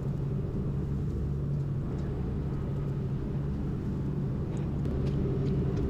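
Boat engine running at a steady pace underway, a constant low drone.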